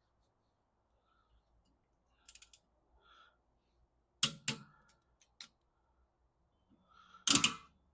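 Click-type torque wrench on a 6mm Allen socket tightening wheel-adapter studs to 30 lb-ft, with sharp metallic clicks and clunks. There is a strong pair about four seconds in and the loudest click near the end, the sound of the wrench breaking over at its set torque.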